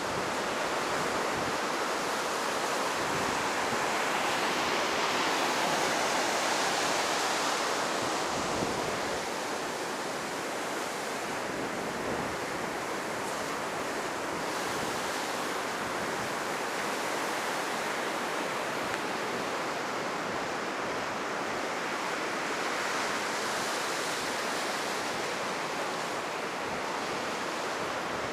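Heavy surf breaking and washing up on a sandy beach, high after a typhoon, in a continuous rush that swells louder twice, with wind buffeting the microphone.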